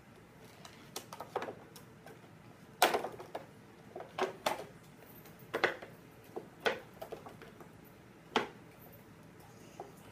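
Cardboard toy box being opened by hand: scattered sharp clicks and crackles of cardboard and plastic packaging, the loudest about three seconds in.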